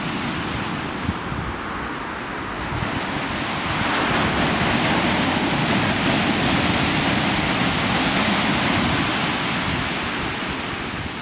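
Heavy surf breaking and washing up a shingle beach: a steady rushing that swells about four seconds in and eases near the end. Wind buffets the microphone underneath.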